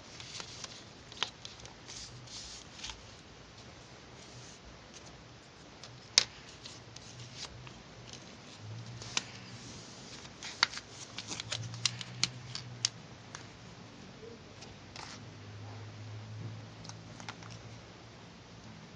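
Hands working on a handmade toy shuriken: scattered sharp taps and clicks with light rustling, thickest in two clusters, one near the start and one in the middle, with one sharp tap about six seconds in.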